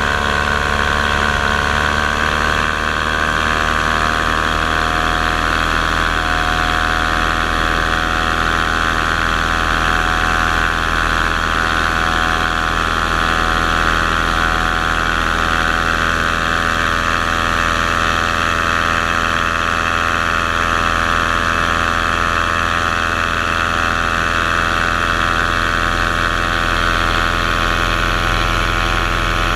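Motors of a small aircraft carrying the camera in flight, running steadily with a constant pitched hum that dips slightly in pitch about a second and a half in.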